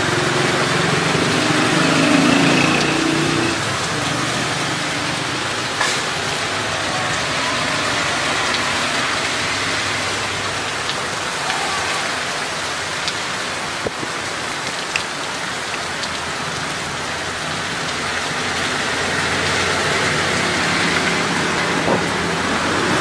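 Steady hiss of heavy rain falling and splashing on a waterlogged street. A motor vehicle's engine hum passes in the first few seconds and again near the end, with a few brief ticks scattered through.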